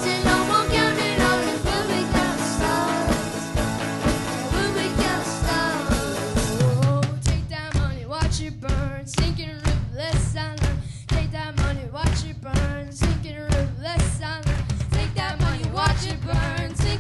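A small live rock band playing: drum kit, acoustic guitar, keyboard and singing. About seven seconds in, the full chords drop out to a sparse breakdown of steady drum hits, about two a second, with the vocal line carrying on over them.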